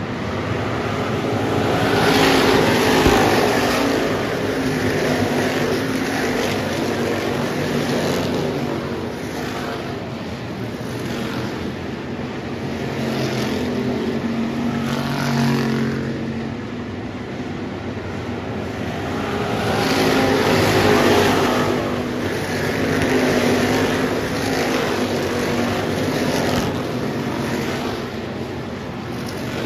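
Dirt track race cars running laps, their engines swelling and fading as they come past again and again.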